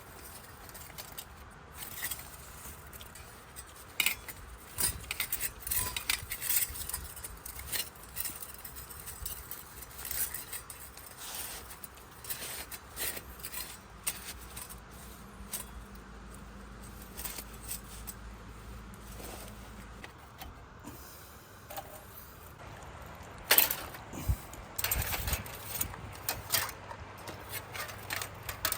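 Irregular clinking, clicking and scraping of small hard objects being handled, with the loudest knock about 23 seconds in.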